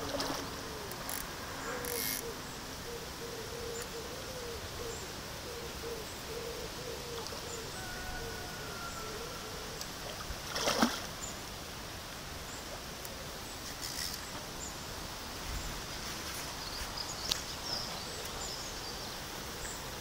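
Quiet lakeside ambience while a hooked common carp is played on a fly rod, with the fish splashing at the surface; the loudest splash comes about eleven seconds in.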